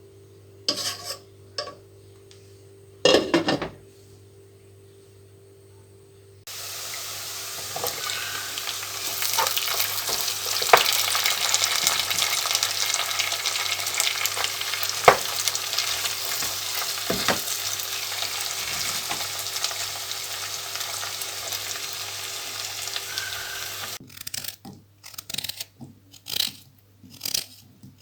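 Food sizzling in hot oil in a pan, with scattered clicks of a utensil stirring it. The sizzle starts suddenly about a quarter of the way in and cuts off sharply near the end. A few short knocks come before it, and a quick run of knocks follows it.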